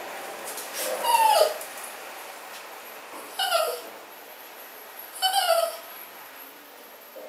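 Small poodle whining three times, each a short cry falling in pitch, about two seconds apart.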